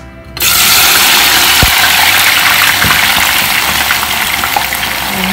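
Sliced onions dropped into hot oil in a stainless steel pot, bursting into a loud deep-fry sizzle just under half a second in. The sizzle stays loud and dense, easing slightly over the following seconds.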